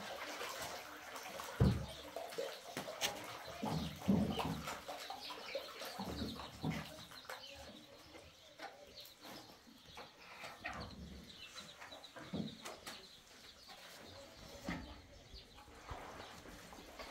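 Hands stirring wet plaster in a basin, with irregular swishing and dull knocks against the bowl, most of them in the first half. Faint bird chirps now and then.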